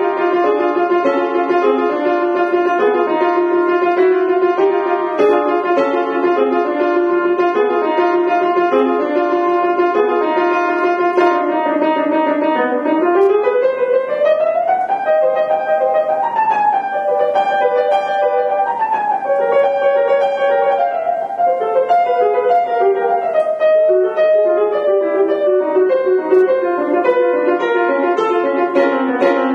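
Grand piano playing a classical solo piece in quick, even notes, with a fast rising run a little before halfway.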